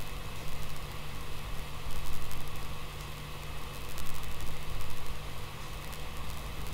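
Steady background hiss with a low electrical hum, and a few faint clicks about two seconds in and again around four to five seconds in.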